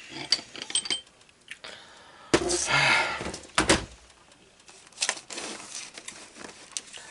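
Steel socket extensions clinking and rattling as they are handled: scattered sharp clicks, with a longer rattle about two to four seconds in.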